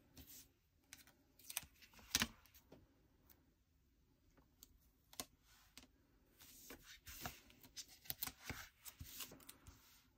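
Faint, scattered small clicks and rustles of hands peeling and pressing letter stickers onto a paper planner page. One sharper click comes about two seconds in, and a busier run of taps and paper rubbing follows from about six seconds to near the end.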